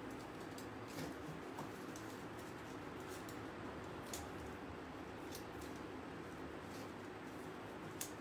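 Metal canning rings and thin crafting wire being handled, with a handful of sharp light clicks spread through, over a steady background hiss.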